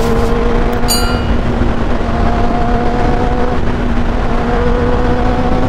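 Kawasaki Ninja ZX-10R's inline-four engine holding steady revs at highway cruising speed, with wind rumble on the microphone. About a second in, two clicks and a short bell chime from a subscribe-button sound effect.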